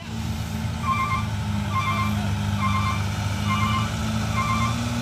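A loaded dump truck reversing: its back-up alarm gives a short warbling beep about once a second over the steady low running of its engine.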